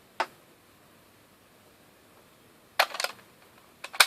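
A few sharp hard-plastic clicks and clacks as the Gabutyra de Carnival toy and its Zyudenchi batteries are handled: one soon after the start, a short cluster near three seconds, and another just before the end.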